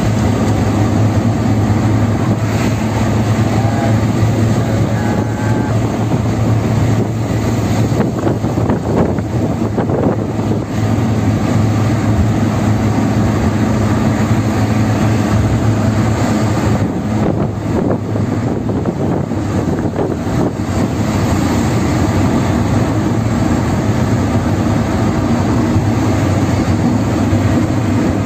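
Steady drone of engine and tyre noise inside the cabin of a car driving at speed on a highway.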